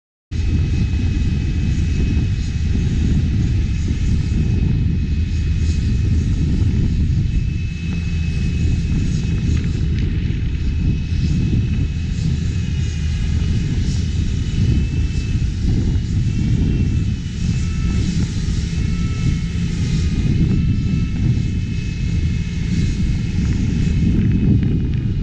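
Whine of a multirotor drone's propellers, several high tones wavering and shifting in pitch as the motors change speed, over a heavy low rumble of wind and engine noise.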